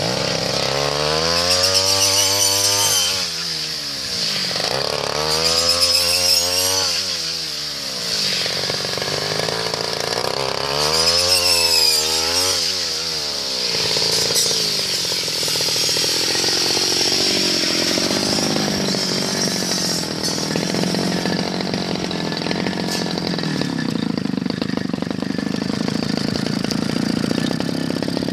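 Backpack brush cutter's small engine driving the cutting head through standing rice stalks, revving up and falling back three times in the first half. Each rev lasts two to three seconds. After that it runs more evenly at a lower speed.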